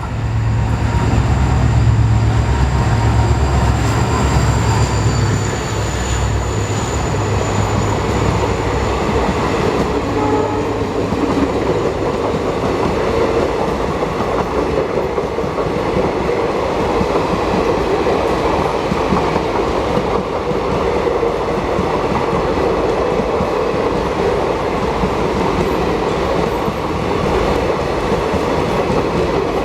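An EMD WDP4D diesel locomotive's two-stroke engine passes close at speed with a loud, low drone that fades after about eight seconds. Then the express train's coaches roll past with a steady rumble and clatter of wheels on rail joints.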